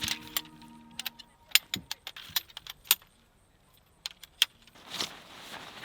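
Metal camping gear being handled: a string of sharp, irregular metallic clinks and clicks, then a brief rustle near the end.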